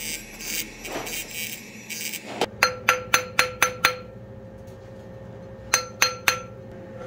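A mallet tapping a white-gold ring on a steel ring mandrel to true it round. It comes as a quick run of about seven taps, then three more near the end, each leaving the mandrel ringing with a steady tone. In the first couple of seconds a rotary handpiece runs more quietly on the ring.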